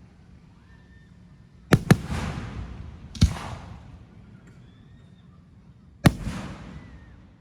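Aerial fireworks going off: a quick double bang about two seconds in, another bang a second and a half later, and a last one near six seconds. Each bang is followed by a fading rumble.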